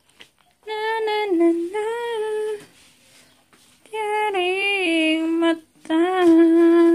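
A woman's voice singing a wordless tune in three phrases of held notes with a slight waver, each stepping down in pitch.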